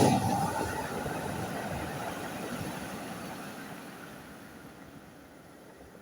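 Sea waves on the shore: a wave breaks right at the start, and its wash slowly fades away over the following seconds.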